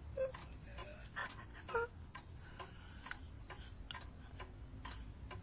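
Clock ticking steadily, about two ticks a second, with two short gasps from a person near the start and just before two seconds in.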